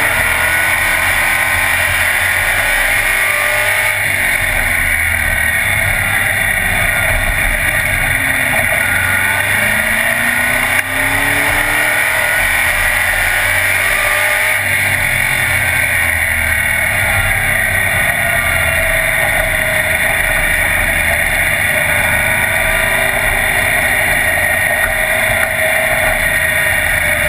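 A stock race car's engine heard from inside the cockpit, loud and continuous, its pitch rising and falling every few seconds as the throttle opens and closes.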